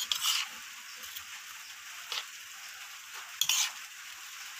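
Metal spoon tossing shredded green mango salad on a plate: rustling strands and the spoon scraping the plate, with a few louder scrapes near the start and again about three quarters through.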